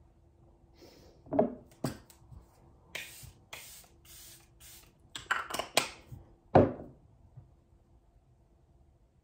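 Small objects being handled at close range: a series of sharp clicks and knocks over several seconds, with a few short hissing bursts in the middle.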